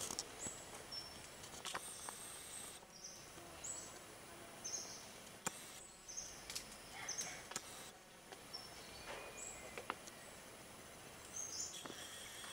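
Quiet tropical forest ambience with short high-pitched chirps every second or so and a few faint clicks.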